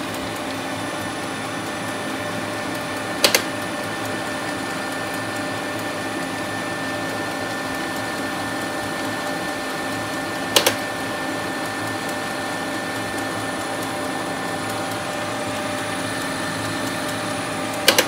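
Fuji Xerox DocuPrint C3300 colour laser printer running just after power-up on a replacement power supply, with a steady hum. Three sharp clicks come about seven seconds apart.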